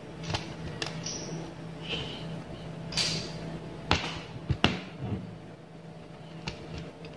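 A few light clicks and taps from a metal aari hook needle picking beads out of a plastic lid and working through the taut embroidery fabric, the loudest pair a little past the middle, over a steady low hum.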